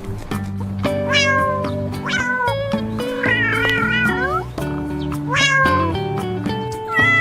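A cat meowing about five times, the calls mostly sliding down in pitch and one longer wavering call near the middle, over background music.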